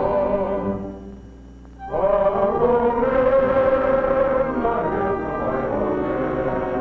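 Soundtrack music. It dips quiet for about a second shortly after the start, then a new phrase comes in with long held notes.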